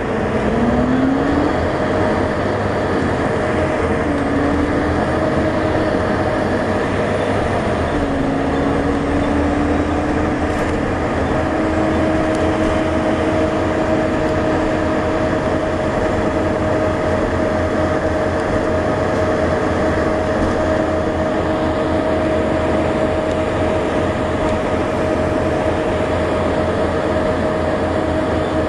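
Volvo B7TL double-decker bus under way, its drivetrain giving a loud hoover-like whine over the low engine rumble. The whine climbs in pitch three times in the first ten seconds as the bus pulls up through the gears, then holds a steady pitch while it cruises.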